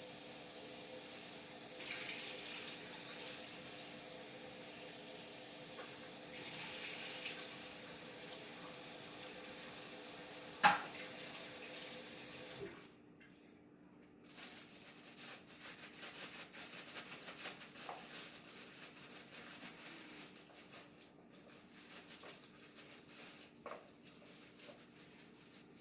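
Kitchen tap running steadily into a sink, with one sharp knock about ten seconds in; the water shuts off abruptly about halfway, leaving soft, scattered handling clatter.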